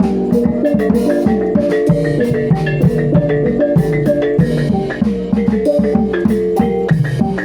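Reog Bantul gamelan ensemble playing live: hand drums beating a quick, even rhythm under interlocking notes struck on tuned metal percussion.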